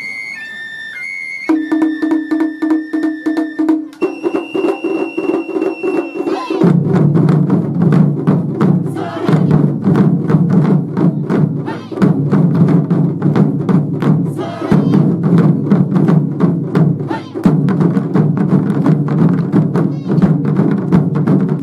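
Wadaiko (Japanese taiko) drumming: rapid, dense drum strikes after a few high held notes, growing fuller and louder with a deep booming layer from about six seconds in.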